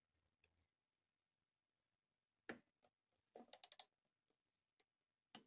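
Torque wrench tightening a Briggs & Stratton cylinder head bolt to 20 N·m: a single sharp click about two and a half seconds in, then a quick run of four or five ratchet ticks about a second later, and one more click near the end.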